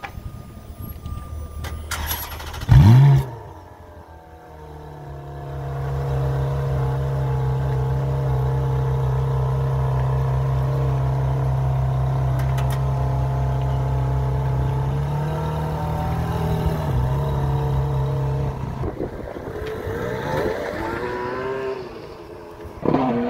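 Ferrari F430's V8 engine idling, then a single sharp rev blip about three seconds in. It then runs steadily and louder for about thirteen seconds. Near the end, a car accelerates past with rising and falling pitch.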